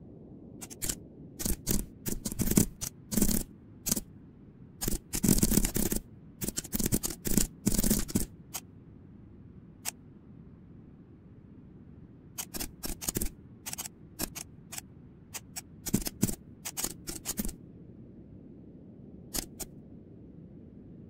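Computer keyboard typing: bursts of rapid key clicks with pauses between, the densest run in the first half and another burst about two-thirds of the way through.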